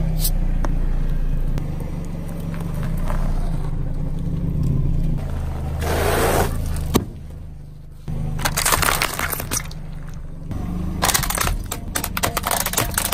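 A car engine idles at low speed while its tyre rolls over objects. About six seconds in an inflatable beach ball bursts under the tyre with a rush of noise and a sharp pop. From about eight seconds on comes repeated cracking and crunching of hard plastic as a plastic toy is crushed.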